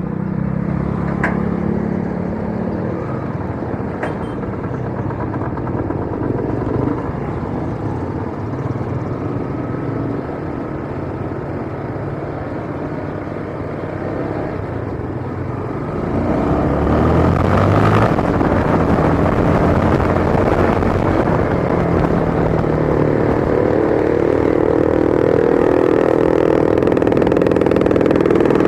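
Yamaha Sniper 155R's single-cylinder engine running while riding, its note shifting up and down. A rushing noise grows louder a little past halfway through, and a steadier, higher engine note holds near the end.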